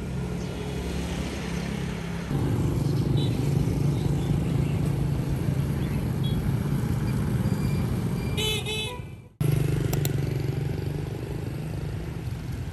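Motor vehicle engine running steadily with road noise, with a few short high chirps about eight and a half seconds in; the sound fades and drops out abruptly about nine seconds in, then the same engine hum picks up again.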